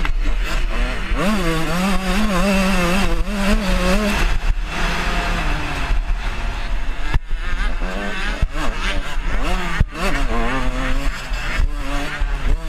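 125cc two-stroke motocross bike engine being ridden hard, revving up again and again and wavering in pitch as the throttle opens and closes through the corners and shifts, over a steady low rumble.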